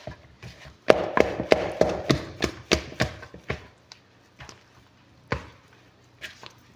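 Pizza dough kneaded by hand in a plastic mixing bowl: a quick run of soft thuds and taps as the dough is pressed and slapped against the bowl. The taps come about three a second, then thin out to a few scattered knocks.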